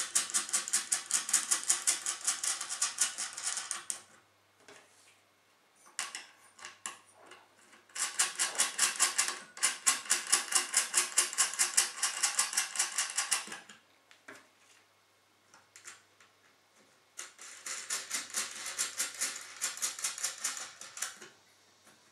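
Fast, even clicking, several clicks a second, as the mounting screws of a CPU water block are turned down onto the motherboard. It comes in three runs of a few seconds each, with pauses between them.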